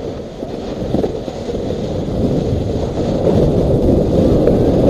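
A snowboard sliding and scraping over packed snow, with wind rushing over the action-camera microphone. The noise is steady and grows louder over the second half.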